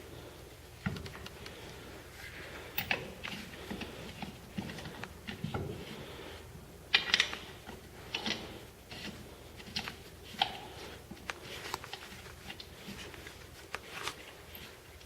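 Lug nuts being threaded by hand onto a mag wheel's studs: irregular metallic clicks and scrapes, the loudest about seven seconds in.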